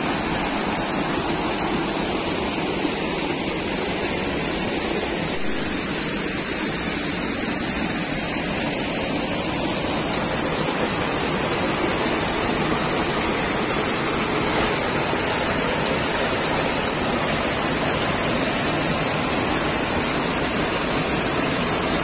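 Small waterfall, about six feet high, pouring onto rocks: a steady, unbroken rush of falling and splashing water.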